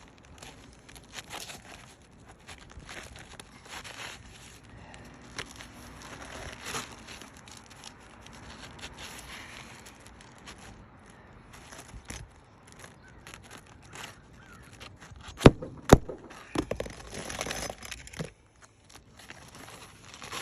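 Asphalt roof shingles being lifted and pried up, with scattered crackling and tearing as the sealant strips let go. About fifteen seconds in come two loud, sharp knocks half a second apart, then a few seconds of scraping.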